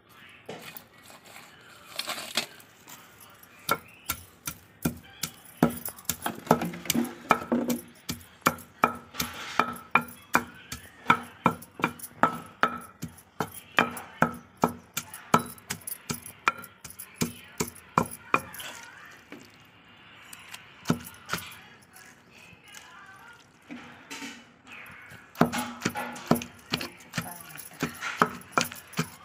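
Wooden pestle pounding in a stone mortar, crushing garlic cloves and red chilli-tamarind pickle paste: repeated thuds at about two strokes a second, with a pause of several seconds about two-thirds through before the pounding resumes.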